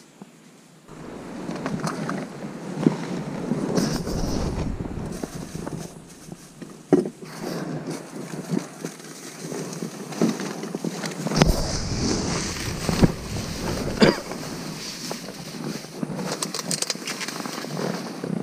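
Camera handling noise: clothing rubbing and bumping against the microphone, with a rough rumble and many scattered knocks and clicks. Plastic rustles in among it.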